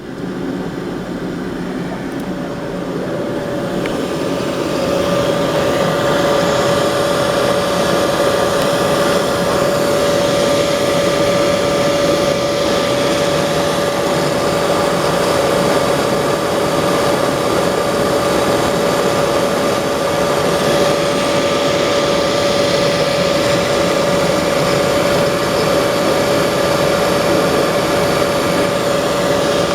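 Domestic condensing boiler running: its combustion fan and burner give a steady rushing noise with a clear hum-like tone. The sound builds over the first few seconds, then holds steady.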